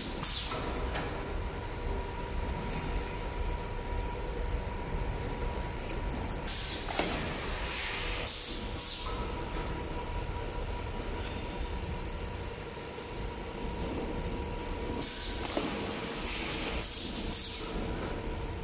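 DPP-550 plastic thermoforming machine running, with a steady high whine over its mechanical noise. Short hisses come several times, in twos and threes, as the pneumatic forming station cycles.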